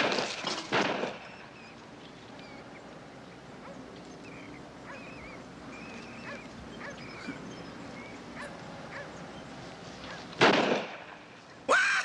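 A wooden baseball bat whacking, twice at the start and once more about ten and a half seconds in, with faint high squeaks of rats in between.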